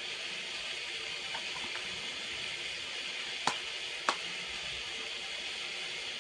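Steady hiss of rain falling, with two sharp clicks about three and a half and four seconds in.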